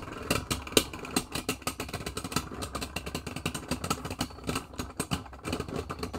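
Two Beyblade Burst spinning tops clacking repeatedly against each other, several sharp clacks a second, over the steady whir of their tips spinning on the plastic stadium floor.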